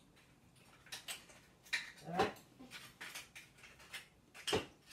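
Light clicks and knocks of kitchen utensils and containers being handled on a counter, scattered irregularly, with a sharper knock near the end.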